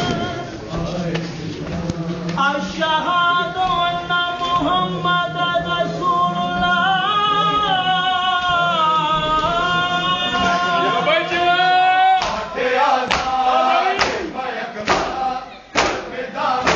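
A man singing a noha, a Shia mourning lament, in long drawn-out lines. About two-thirds of the way through, a group of men begins matam: hands slapping bare chests in unison, about once a second, with voices around them.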